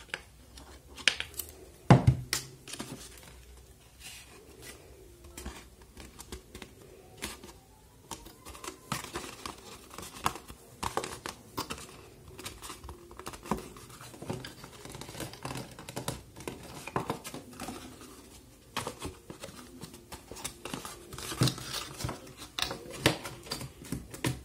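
Cardstock being handled and pressed: rustling and crinkling of stiff card, with many scattered sharp clicks and taps, the loudest about two seconds in.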